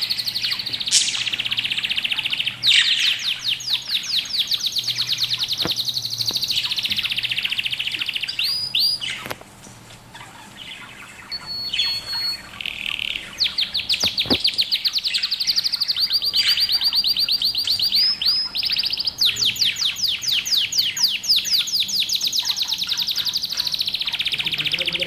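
Budgerigars chirping in fast runs of rapidly repeated high notes, with a brief lull a little before halfway through.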